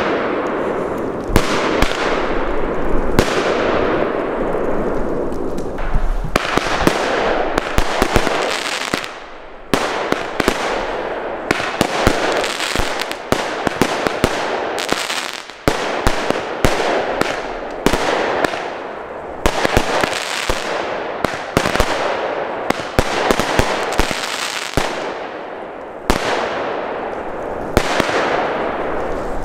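Consumer fireworks batteries (compound cakes) firing a continuous barrage: sharp bangs in quick succession over a steady rushing noise, with brief lulls about nine and fifteen seconds in.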